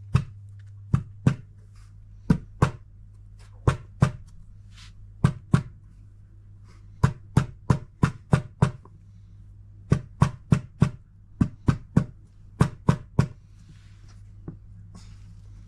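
Sharp knocks in quick groups of two or three as an old oil seal, laid on top as a driver, is struck to press a new drum oil seal evenly into a washing machine tub. The knocking stops about 13 seconds in.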